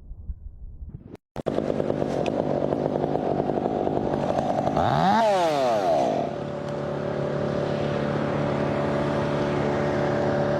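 A two-stroke chainsaw engine starts running about a second in. It is revved up and back down about halfway through, then settles into a steady idle.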